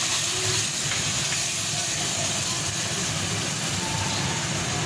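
Chopped tomatoes with water cooking down in a steel pot on a gas burner, sizzling and bubbling with a steady hiss.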